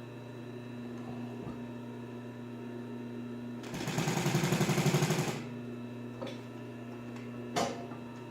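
Singer 111WSV14 triple-feed industrial sewing machine, its clutch motor humming steadily, breaks into a burst of rapid, evenly paced stitching for about two seconds midway through as it sews four layers of marine vinyl. A single sharp click follows near the end.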